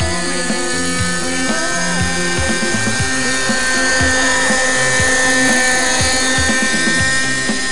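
Raptor RC helicopter's nitro glow engine and rotor running at a steady high whine while it hovers, with background music and a beat playing over it.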